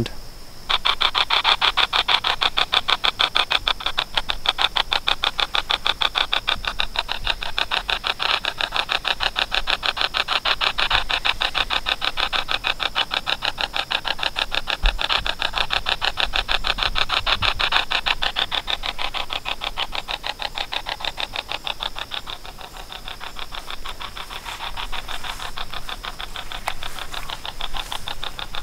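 Spirit box app on a smartphone sweeping through its phone speaker: a fast, even, choppy stutter of static, several pulses a second. About twenty-two seconds in it turns quieter and less regular.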